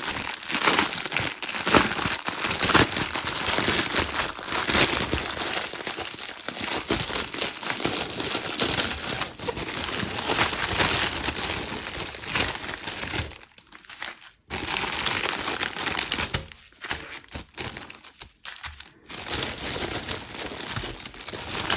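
Clear plastic packaging crinkling and rustling as a diamond-painting kit's contents, small zip bags of drills and a paper legend, are pulled out and handled. There are brief lulls about two-thirds of the way through.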